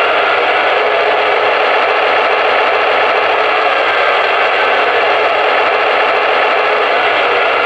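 Lionel Railsounds II soundboard in an O-gauge model diesel locomotive playing its diesel engine running sound through the locomotive's speaker, held steady with the throttle turned up.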